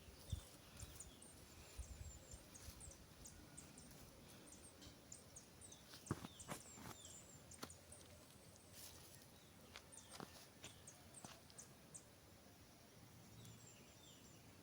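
Near silence: faint scattered scrapes and taps of hands leveling and clearing the dirt, with faint high chirps in the background.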